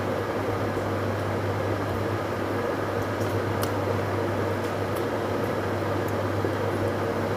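Steady hum and hiss of a running household appliance, with a strong low hum underneath; a few faint clicks come through over it around the middle.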